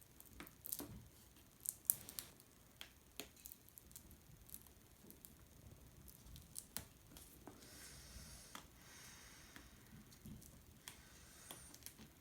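Faint scattered clicks and taps of hands handling laptop parts while the new screen's connector cable is being plugged in, with a brief soft rustle about eight seconds in.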